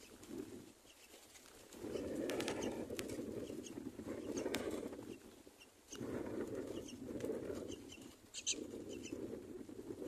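Myna nestlings shuffling and scrabbling in a straw nest right against the microphone: repeated muffled rustling bursts with scratchy clicks, and a few faint high chirps, the clearest about eight and a half seconds in.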